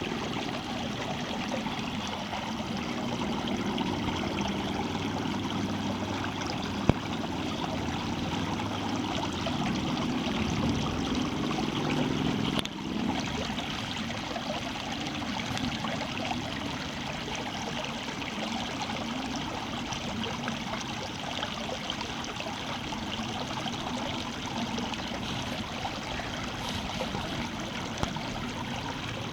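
Water running and splashing steadily, like a small stream. A single sharp click comes about seven seconds in, and the deeper part of the sound thins out a little before the thirteen-second mark.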